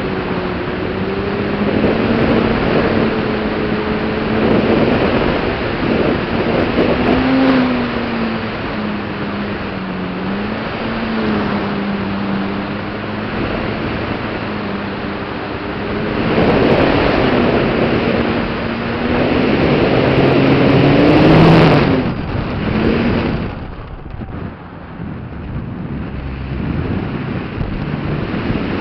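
Onboard sound of a radio-controlled Yak model plane in flight: its motor and propeller drone, the pitch wandering up and down with the throttle, over heavy wind rush on the microphone. About three-quarters of the way through, the pitch climbs, then the motor cuts out and mostly wind noise is left.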